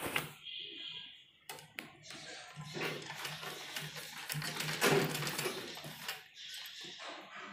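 Gulzar sewing machine stitching as its handwheel is turned by hand, a quick, even mechanical clatter that starts about two and a half seconds in and stops about six seconds in.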